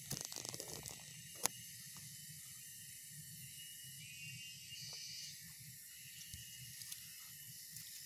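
Faint steady high-pitched hiss, with a short patch of crackling rustle in the first second and one sharp click about one and a half seconds in.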